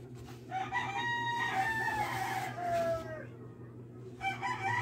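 A rooster crowing: one long crow that drops in pitch at its close, then the start of a second, shorter call near the end.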